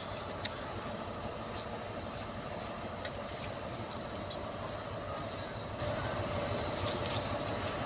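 Diesel engine of a Class 43 HST power car idling with a steady hum while the train stands still, with a few faint clicks. The hum gets louder about six seconds in.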